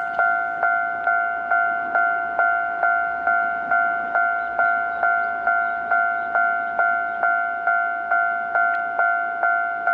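Japanese railway level-crossing warning bell ringing at a steady pace, a little over two strikes a second, each strike fading before the next: the warning that a train is approaching and the crossing is closing.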